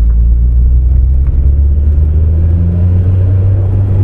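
Nissan Pulsar GTI-R's turbocharged SR20DET four-cylinder engine running under way, heard from inside the cabin as a steady low drone.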